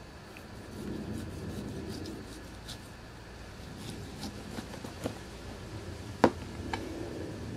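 Chef's knife sawing crosswise through a blacktip shark's body to cut steaks on a plastic cooler lid: soft scraping and rubbing with small clicks, and one sharp knock about six seconds in.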